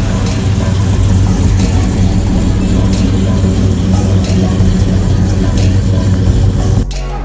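First-generation Chevrolet Monte Carlo's V8 engine running at low revs as the car pulls away slowly, a steady low rumble that cuts off abruptly near the end.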